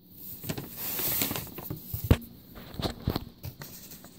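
Paper art prints being handled and shifted over a hardcover book: rustling with scattered light taps, and one sharper knock about two seconds in.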